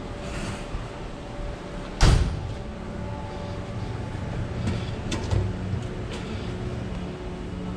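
A single loud bang about two seconds in, then a few lighter clicks, over a steady low hum.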